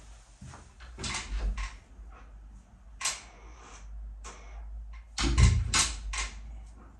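Irregular rustling, clatter and knocks of objects being handled and moved, with the loudest thump about five seconds in.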